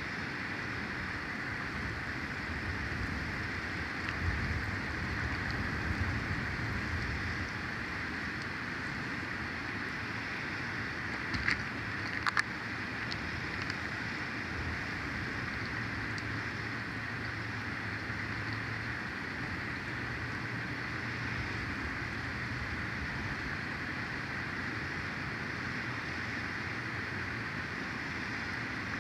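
Steady wind noise and hiss on an outdoor microphone, with low rumbling gusts swelling and easing. A few sharp clicks come about eleven to twelve seconds in.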